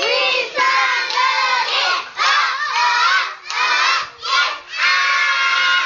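A group of young children shouting and calling out together, in loud stretches broken by short pauses.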